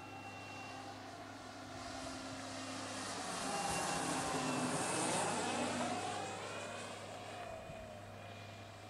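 Radio-controlled P-47 model plane with a brushless electric motor making a pass overhead: the motor and propeller whine grows louder, peaks about five seconds in, and falls in pitch as it goes by and fades.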